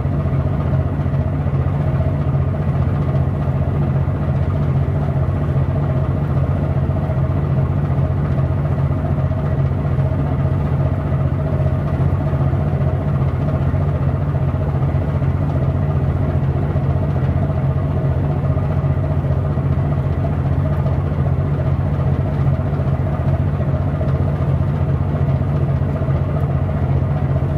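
A large engine running steadily at constant speed: an even, unchanging low hum.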